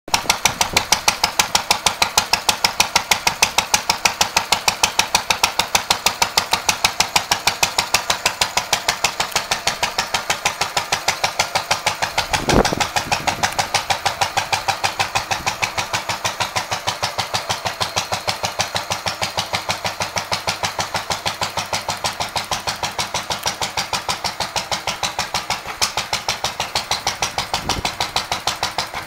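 1949 Lister D single-cylinder stationary engine running steadily at a slow, even beat of roughly four firing strokes a second. One louder knock sounds about halfway through.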